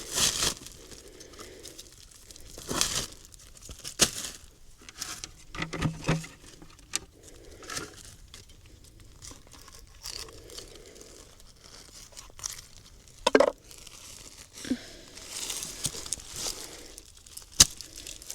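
Thin plastic dog poop bags crinkling and rustling as they are handled, with scattered sharp clicks and knocks.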